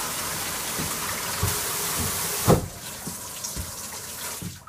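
Shower heads and bath taps running at full flow from an accumulator-fed supply, then shut off by hand. The spray noise drops sharply after a knock about two and a half seconds in, and the last of the flow stops near the end, with a few low thuds from the taps along the way.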